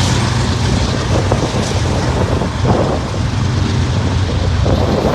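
Vehicle engine running steadily, a constant low rumble, with wind rushing on the microphone.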